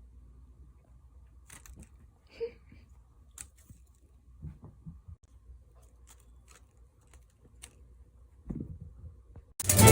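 Quiet room with a few faint, scattered clicks and small knocks, one slightly louder about two seconds in. Music with violin starts abruptly just before the end.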